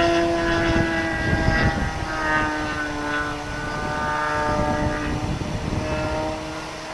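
Engine of a Great Planes Revolver .60 radio-controlled aerobatic model plane in flight: a steady buzz that drops in pitch about a second in and then holds. Gusty wind rumbles on the microphone underneath.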